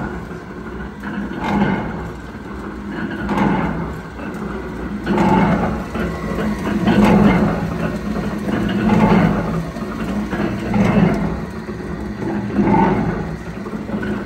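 A Waterbury #40 pusher-style machine running under its electric drive motor. A steady low drone swells and eases about every two seconds as the machine cycles, with clatter at each swell.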